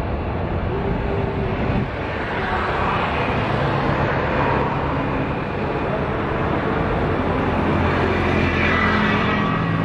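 The twin CFM56 turbofan engines of a Boeing 737-800 running at takeoff thrust as the jet lifts off and climbs away: a loud, steady jet rumble that grows a little louder after about two seconds.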